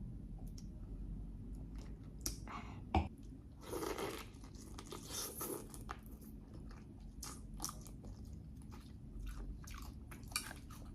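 A person chewing and biting food close to the microphone, with many short crunches and small clicks.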